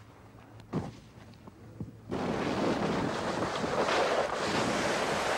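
Wind rushing over a camcorder microphone as the camera rides along behind a snowboarder. It starts abruptly about two seconds in and holds steady. Before that there is only a faint hum with a couple of soft knocks.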